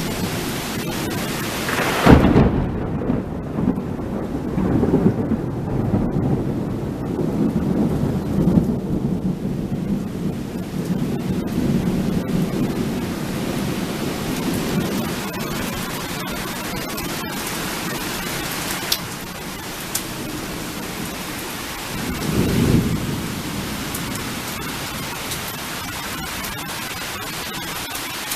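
Thunder in a thunderstorm over steady rain: a sharp crack about two seconds in, followed by a long low rumble that dies away over several seconds, and a second, shorter rumble near the end.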